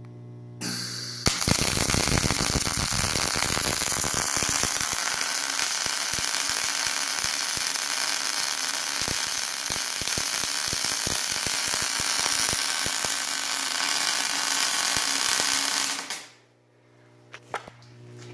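Electric arc welder running a first weld pass: a steady crackling hiss full of sharp pops, starting about half a second in and cutting off shortly before the end.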